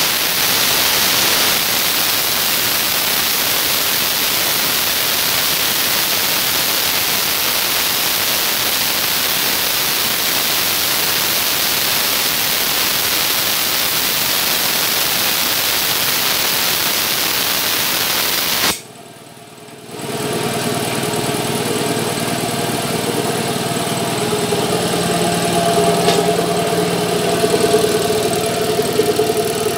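Compressed air hissing loudly and steadily out of a Meiji 2 HP air compressor's tank, cutting off sharply about two-thirds of the way through. About a second later the compressor's electric motor and piston pump start up and run with a steady hum.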